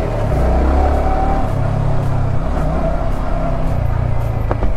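Yamaha R15M's 155 cc single-cylinder engine running as the motorcycle is ridden slowly, its note rising and falling a little with the throttle. A short knock near the end.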